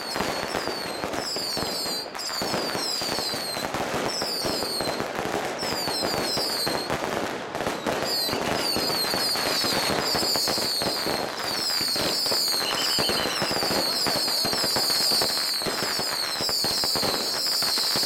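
Firecrackers and fireworks going off without a break: a dense, continuous crackle of sharp bangs, with many short, high, falling whistles repeating over it.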